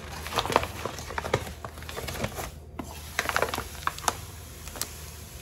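Sugar being scooped and measured with a measuring cup: a series of irregular light clicks, scrapes and rustles.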